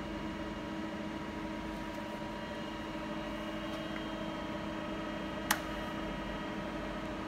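Steady mechanical hum with several fixed tones from the idling FEDA FD-300-2A automatic hydraulic lathe's hydraulic unit, the machine powered but not yet cutting. One sharp click sounds about five and a half seconds in.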